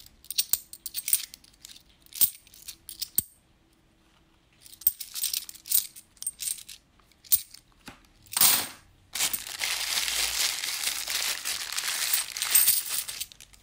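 50p coins clinking against each other as they are fanned and sorted in the hand, in scattered light clicks with a short pause. Near the end, a clear plastic coin bag rustles for about four seconds as a hand reaches into it.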